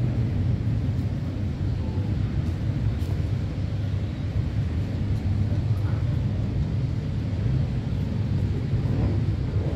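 Steady low outdoor rumble of city background noise, even throughout, with no distinct events standing out.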